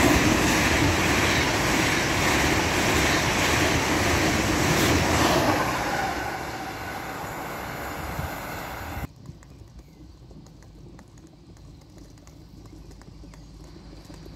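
LNER Azuma high-speed train passing close at speed: a loud rushing noise of air and wheels on rail that eases off after about six seconds. About nine seconds in it cuts off abruptly to a much quieter station background.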